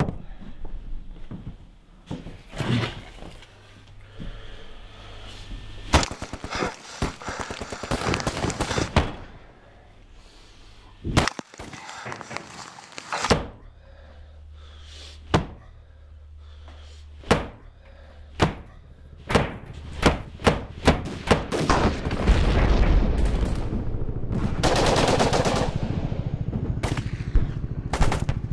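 A run of sharp, heavy impacts, scattered at first and then coming in quick succession in the second half, over a low rumble. The impacts are cleaver chops and gunfire-like cracks, and a swell of noise builds near the end.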